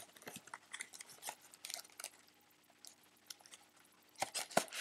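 Hands handling an opened cardboard trading-card box and the card packs inside it: light rustling and scattered soft clicks, with a few sharper clicks of the cardboard near the end.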